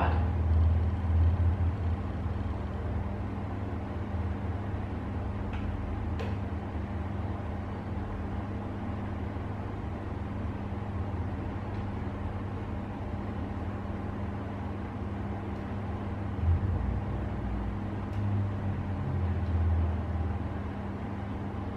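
Low, steady background hum and rumble that swells a few times and then settles back.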